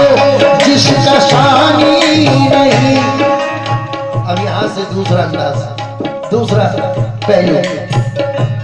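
Qawwali accompaniment of harmonium and tabla playing between sung lines. About three seconds in the sound thins and the tabla strokes stand out over the harmonium's held notes.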